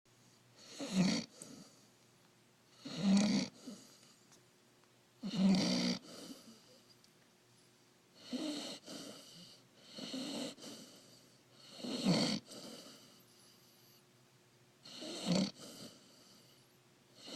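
A puppy snoring in its sleep: about seven snores, one every two to three seconds, each a short loud snore followed by a fainter tail.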